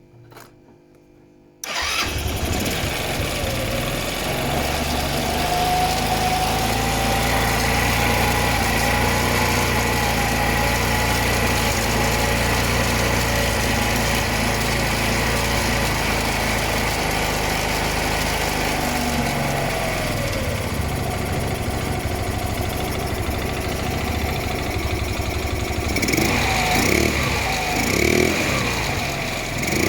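Okinoi 150cc scooter engine starting about two seconds in and then running steadily after its carburetor work, with the revs rising and easing off a few times near the end.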